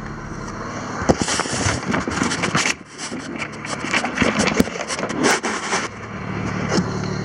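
Clattering, rustling handling noises over a low running engine. From about six seconds in, the Chevrolet Epica's 2.5-litre X25D1 straight-six is heard idling steadily.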